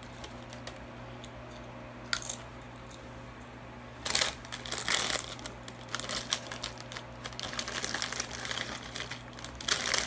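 A foil bag of Doritos crinkling and rustling as hands work in it, with chips crunching, mostly from about four seconds in; before that it is fairly quiet apart from one short click.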